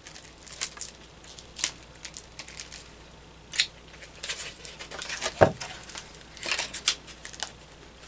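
Fumbling attempt to open the packaging of a new deck of playing cards: scattered crinkles and small tearing sounds, with one louder knock about two-thirds of the way through.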